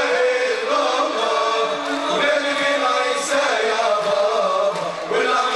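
Male choir chanting a Tunisian Sufi devotional song, performed live, with long held notes under a moving sung melody.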